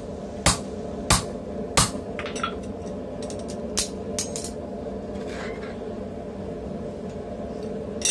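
Hand hammer striking red-hot steel on a steel swage block: three sharp blows about two-thirds of a second apart. Then come lighter clinks of metal tools being set down and handled.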